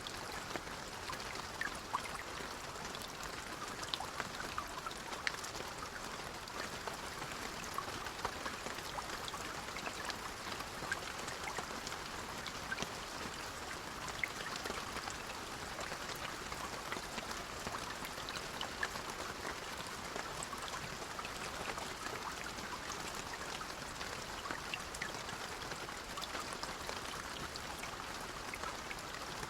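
Rain falling steadily on a travel coach, heard from inside the cabin: an even patter dotted with many small sharp drop ticks.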